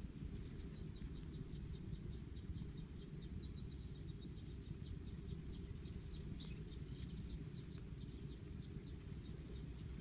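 An insect chirping in short, even pulses, about four a second, over a steady low rumble.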